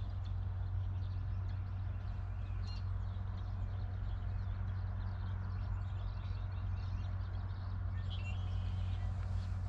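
A steady low hum runs throughout, with a few faint bird chirps about three seconds in and again near the end.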